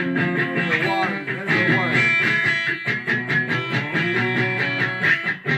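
Sunburst Stratocaster-style electric guitar played in a song, notes picked and strummed in a steady rhythm with some bent notes.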